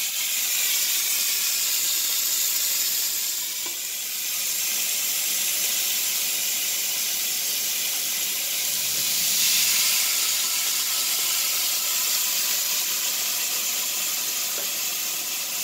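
Marinated steak sizzling steadily on the hot ridged plate of an electric contact grill. The sizzle swells about nine or ten seconds in as a second steak goes onto the plate.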